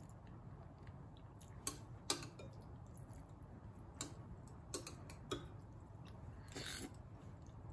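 Metal chopsticks clicking a few times against a ceramic bowl of glass-noodle soup, with quiet chewing and a short slurp of noodles near the end.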